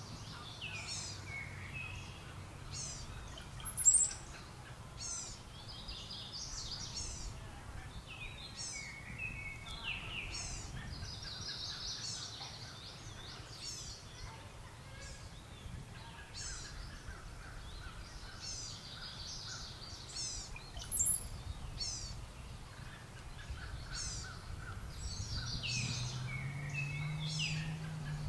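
Birds calling throughout in many short, high, repeated notes with bursts of chatter, including a female brown-headed cowbird calling from its perch. Two sharp clicks stand out, about four seconds in and again about two-thirds of the way through.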